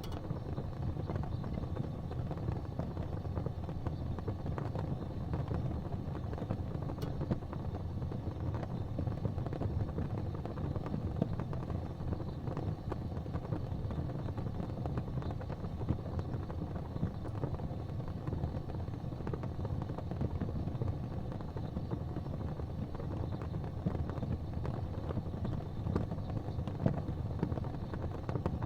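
Gas fireplace flames burning with a steady low rush, with faint scattered ticks throughout.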